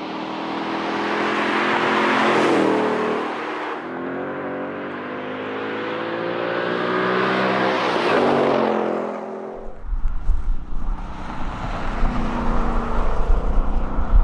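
Ford Mustang's Gen IV 5.0-litre V8 accelerating hard through its active-valve exhaust, the note rising and dipping with gear changes, loudest about two seconds in and again around eight seconds. After about nine and a half seconds the engine note fades and gusts of wind buffet the microphone.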